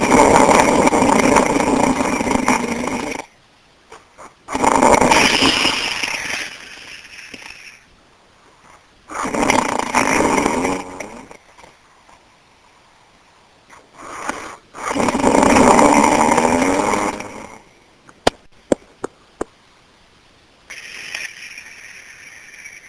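A person snoring: four long, loud snores spaced about five seconds apart, with quiet breaths between them. Near the end come a few short clicks and then a softer hiss.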